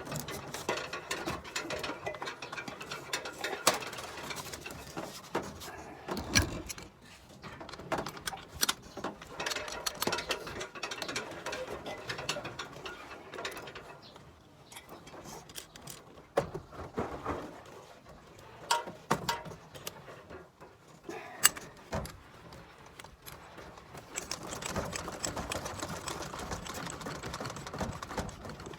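Irregular mechanical clicking and rattling from hand-tool work, with sharp clicks scattered throughout.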